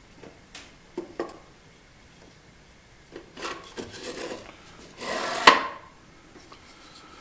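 Plywood slider with a linear-rail bearing block being fitted onto a steel linear motion rail and pushed along it: a few light clicks, scraping and rubbing, then a louder sliding rush that ends in a sharp knock about five and a half seconds in.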